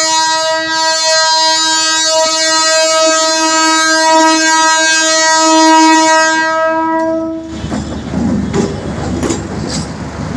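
Train's locomotive horn sounding in one long, steady blast that stops about seven and a half seconds in. It is followed by the rumble and clatter of the arriving train's wheels on the track.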